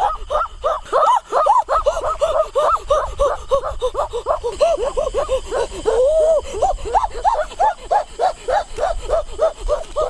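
High-pitched child's voice making short rising-and-falling yelps in quick succession, about three or four a second, with a slightly longer held call about six seconds in.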